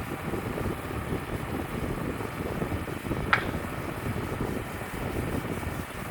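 Wind buffeting the microphone over the steady running of a Wood-Mizer LT35 portable band sawmill, with one sharp click about halfway through.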